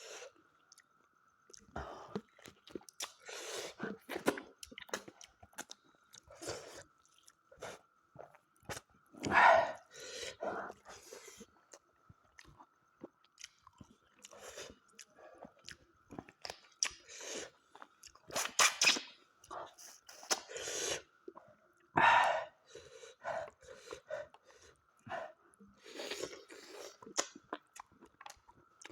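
Close-up eating sounds of smoked mutton leg curry: chewing, biting and crunching in irregular bursts, with a few louder bites, one about nine seconds in and others near nineteen and twenty-two seconds. A faint steady high hum runs underneath.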